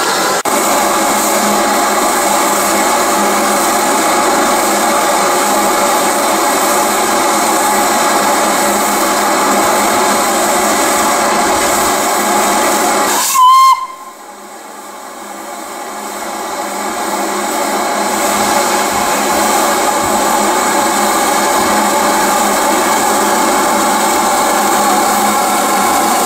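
LNER K1 steam locomotive No. 62005 hissing steam steadily. About halfway through comes one short, loud whistle toot; after it the hiss drops away, then builds up again over several seconds.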